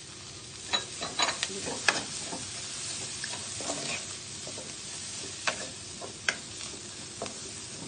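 Shredded chicken filling sizzling in a steel pan while a wooden spatula stirs it, with a steady hiss and sharp scrapes and knocks of the spatula against the pan, most between about one and two seconds in and twice more later.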